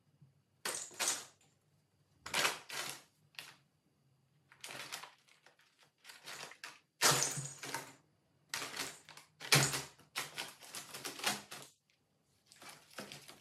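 Brown paper bag rustling and crackling in about ten short, irregular bursts as a Bengal cat paws and digs into it, with brief quiet gaps between.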